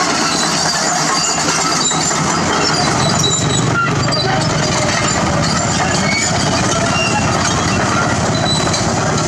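Heavy excavator diesel engine running steadily, a dense, even mechanical noise.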